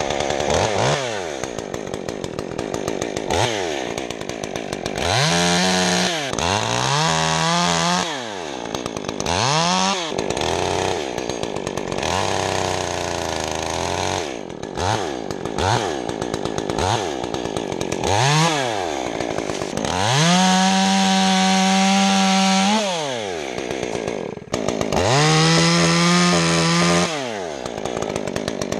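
Stihl MS201T C-M top-handle two-stroke chainsaw with a modified, opened-up muffler, cutting limbs. It revs up and down in many short throttle blips, with several longer stretches held at full throttle.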